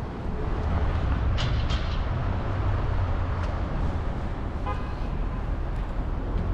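Steady low rumble of road traffic from cars passing on a multi-lane city street, with a short car-horn toot about three quarters of the way through.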